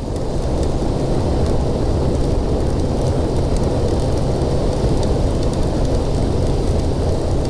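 Kawasaki ZX-6R's inline-four engine running at a steady speed, under a steady rush of wind and road noise on the helmet microphone.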